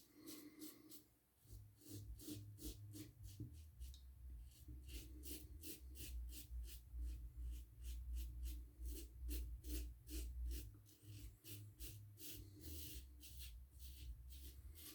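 Gillette Ball-End Tech safety razor scraping through lathered stubble in quick short strokes, about three to four a second, against the grain. Under it runs a low bass rumble from loud music down the street.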